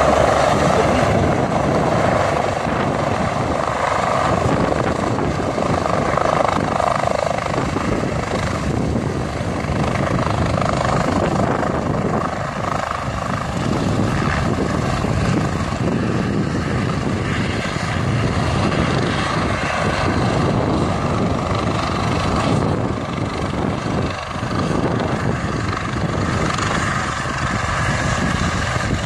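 Rescue helicopter's rotor and turbine noise, a steady loud drone.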